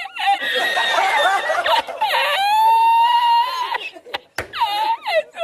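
A man laughing hard in high-pitched, drawn-out squeals, broken by short gaps for breath.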